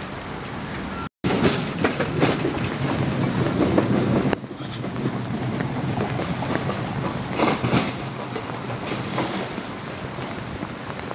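Steady rain falling on wet pavement, with a louder passing vehicle on the wet road from about a second in to about four seconds in. The sound cuts out briefly about a second in and changes abruptly near four and a half seconds.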